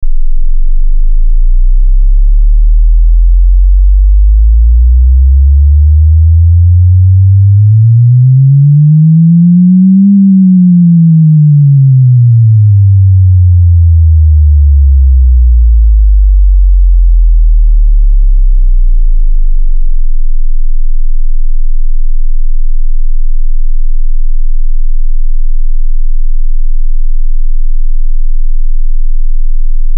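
Subwoofer test signal: a pure sine tone sweeping up from 20 Hz to 200 Hz over about ten seconds and straight back down, then, from about twenty seconds in, a steady, very deep 20 Hz tone.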